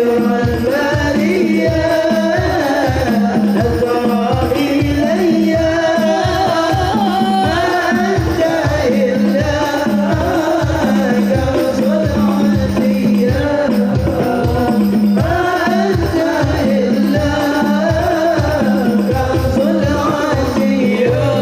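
Sholawat song: a melodic sung line over a steady hand-drum beat of about two to three strokes a second.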